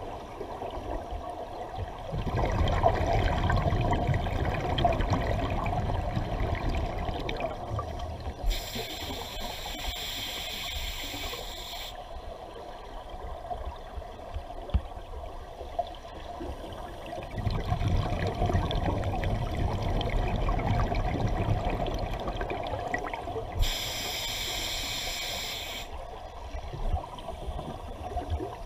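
Scuba breathing heard underwater through a regulator: twice, a long exhalation of rumbling, gurgling bubbles, each followed by a shorter hissing inhalation through the regulator.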